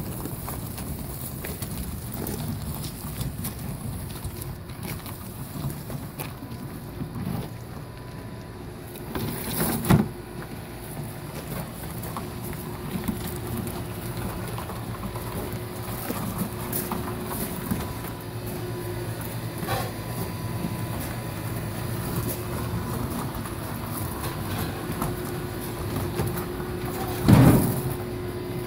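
A hand truck loaded with a boxed air-conditioning condenser rolls and jolts over gravel with a low, steady rumble. Two loud knocks come from the load, one about ten seconds in and one near the end.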